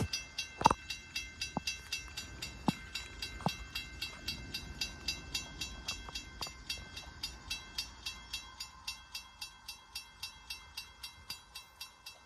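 Railroad grade-crossing warning bell ringing in an even run of about three strikes a second as the crossing activates for an approaching train, with a few sharp clicks in the first four seconds. The ringing stops abruptly at the end.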